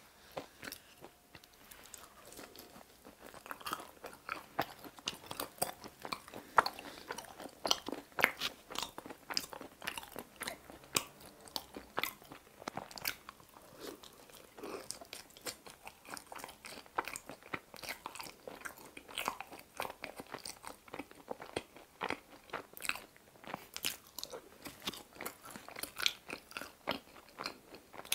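A person biting and chewing pizza crust dipped in sauce: a dense, irregular run of short mouth clicks and chewing noises.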